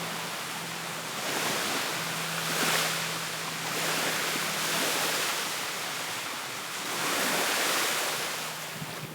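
Gentle sea waves breaking and washing up on a sandy beach, the surf swelling and easing about three times, with a faint steady low hum underneath.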